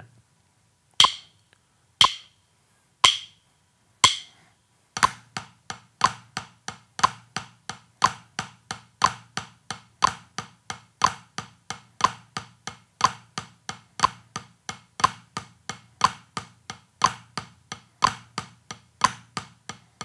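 Four count-in clicks a second apart, then drumsticks on a practice pad playing the Swiss Army triplet rudiment at 60 beats per minute: a flam and two more strokes on every beat, sticking right-right-left, about three strokes a second with the flam accented.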